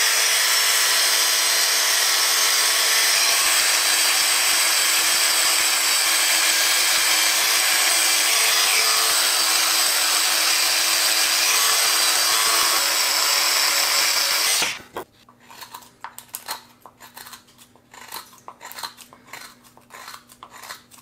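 Micro drill running steadily with a small buffing wheel, polishing the steel of a hand-made ring-shaped scorp blade; the motor stops suddenly about 15 seconds in. Then come short, separate scraping strokes as the freshly polished scorp is drawn through a block of wood in test cuts of its edge.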